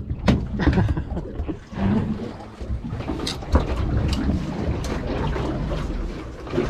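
Wind buffeting the microphone on a small boat at sea, a steady low rumble with scattered knocks and thuds.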